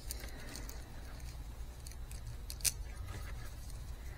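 Small clicks and handling noise of multimeter test leads and clips being reconnected by hand, with one sharper click about two and a half seconds in, over a low steady hum.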